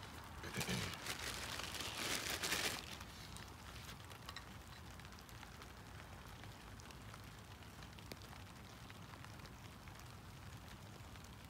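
A person moving through wet grass, rustling and stepping, for about the first three seconds. After that, faint steady crackling from a small wood campfire with scattered light pops.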